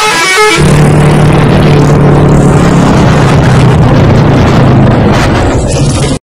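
A bus's telolet multi-tone musical horn finishes its melody about half a second in. Loud, steady vehicle noise with a low hum follows and cuts off suddenly near the end.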